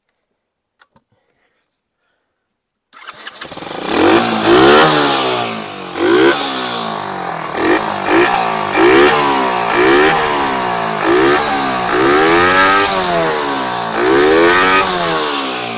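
Small single-cylinder ATV engine starting about three seconds in, then revved repeatedly in short blips, its pitch rising and falling about once a second.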